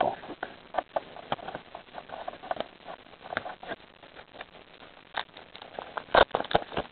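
Trading cards being handled: irregular light clicks and rustles, with a quick run of taps about six seconds in.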